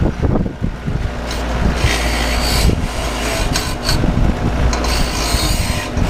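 Grinder taking the sharp edges off a freshly cut piece of steel: a loud, uneven grinding rasp that swells and eases as the tool works the metal.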